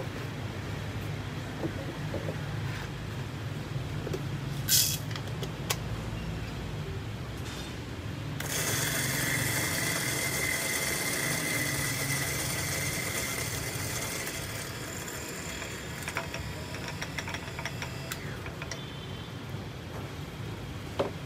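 Electric coffee grinder grinding a cupping sample of beans. It starts suddenly about eight seconds in with a steady high whine over dense noise, runs for about six seconds, then fades. There is a low steady hum throughout, and a sharp click comes a few seconds before the grinder starts.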